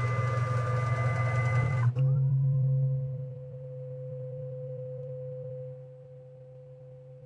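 CNC milling machine's axis drive motors whining steadily with a hum as the head makes a probing move toward the tool setter. About two seconds in, the sound switches abruptly to a quieter single steady whine, which gets quieter again in steps.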